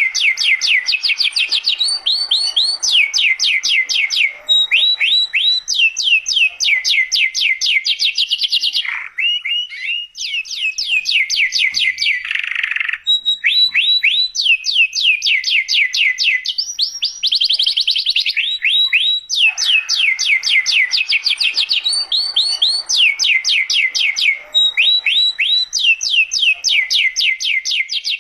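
Domestic canary singing: long rolling trills of rapid, repeated notes that sweep downward, phrase after phrase with brief breaks between.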